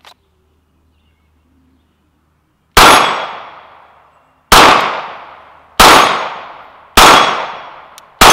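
Five 9mm pistol shots from a Glock 19 Gen 5, fired one to two seconds apart, each followed by a fading echo of about a second. The first comes nearly three seconds in, after a near-silent draw, and the fifth lands at the very end.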